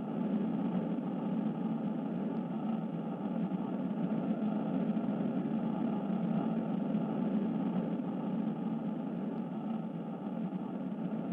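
A steady, even droning rumble with no rhythm or change in pitch.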